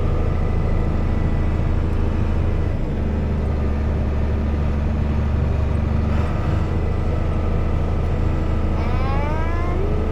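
John Deere combine harvester running steadily with a continuous low drone, which deepens for a few seconds partway through. Near the end comes a short rising whine.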